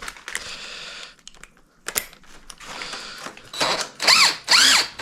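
Light metallic clicks and rattles from the 2004 Honda XR250R's rear shock and its mounting hardware being worked by hand, then about three loud, short squeaks near the end, each rising and falling in pitch, as metal parts bind and rub while the shock is forced out against the load of the wheel and swingarm.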